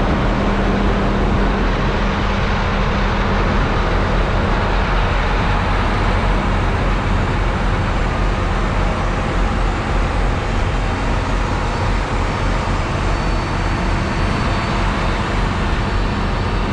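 Farm tractors' diesel engines running steadily at idle: an even low hum under a constant broad hiss, with a low tone that fades out a few seconds in.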